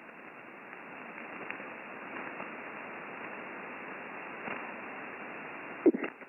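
Shortwave single-sideband receiver hiss, steady band noise between transmissions on the HF amateur band, cut off above about 2.8 kHz by the radio's filter. A short burst comes through near the end as the distant station starts to transmit.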